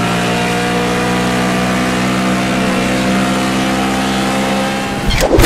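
Car engine idling steadily at an unchanging pitch, as an intro sound effect; a rushing whoosh starts just before the end.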